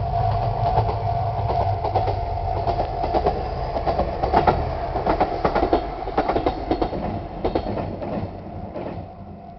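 A diesel train crossing a Japanese level crossing: wheels clacking over the rail joints over a low rumble, fading away near the end. Through it the crossing alarms ring a steady, odd-sounding chord, from two adjacent crossings sounding together.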